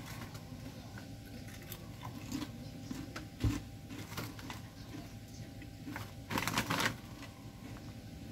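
Lay's potato chips crunching as they are chewed, with crinkling of the foil chip bag being handled; the bag rustles loudest about six seconds in. A dull thump about three and a half seconds in.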